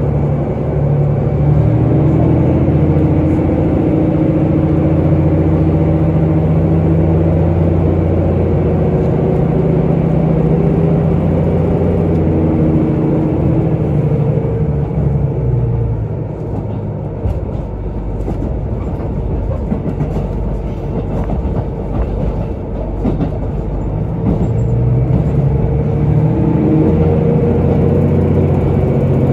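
Diesel railcar running, heard from inside the car: the engine drones steadily under power, drops away about halfway through while wheel clicks over the rails come through, then picks up again near the end.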